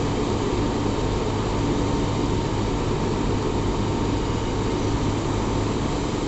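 Steady drone of running shop-floor machinery, with a low hum and a faint high whine held throughout.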